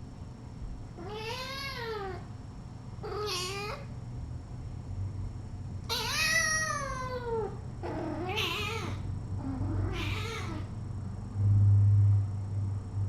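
A cat meowing five times: drawn-out calls that rise and fall in pitch, the third the longest. A low hum underneath swells loudly for under a second near the end.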